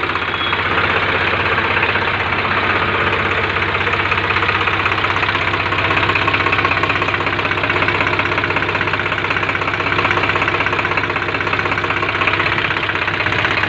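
Swaraj 735 tractor's three-cylinder diesel engine running steadily, just rebuilt after a seizure from overheating with new piston rings fitted, run up to check how it sounds.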